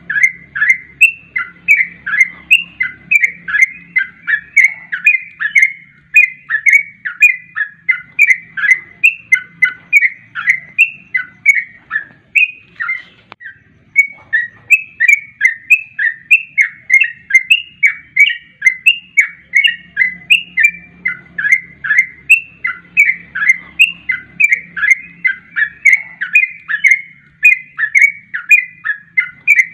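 Yellow-vented bulbul (trucuk) calling in quick repeated chattering notes, about three a second, with a short break about 13 seconds in: a repeating lure recording used to draw or train bulbuls.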